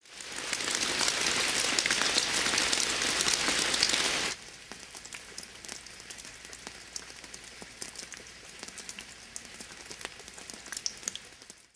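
Rain falling on the ground, heavy for about the first four seconds, then suddenly dropping to a much quieter background with scattered single drops.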